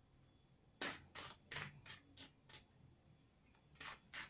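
A tarot deck being shuffled by hand: a run of faint, quick rustles as cards slide over one another, a short lull, then a few more near the end.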